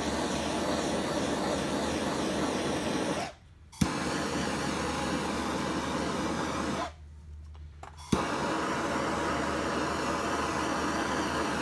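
Hand-held gas torch burning with a steady flame noise, heating cast iron to drive the moisture out before painting. The flame drops out twice, about three seconds in and again about seven seconds in, and comes back each time with a sharp click.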